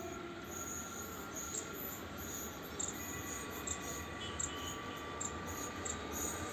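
WAP-4 electric locomotive and passenger train approaching: a low, steady rumble with a faint steady whine, while short high chirps sound again and again over it.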